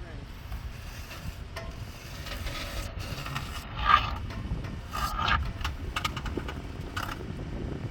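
Toyota 4Runner's underside scraping and grinding on rock as it creeps slowly, over a low rumble. The loudest scrapes come about four and five seconds in.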